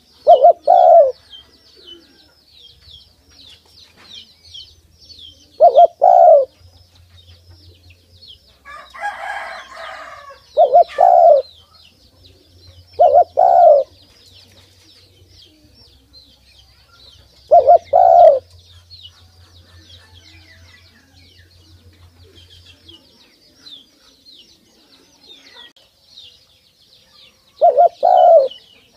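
Spotted dove cooing: six short two-part coos, spaced several seconds apart, with the bird's head bowed low. A steady high twittering of small birds runs under it, and there is a short rustle between the second and third coos.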